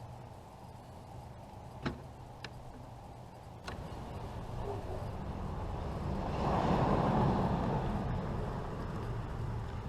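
A few sharp clicks, then a passing vehicle whose noise swells and slowly fades.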